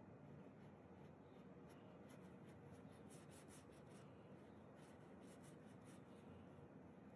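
Faint scratching of a painting tool dragged across paint on canvas, a quick run of short strokes about three to six seconds in, over a low room hiss.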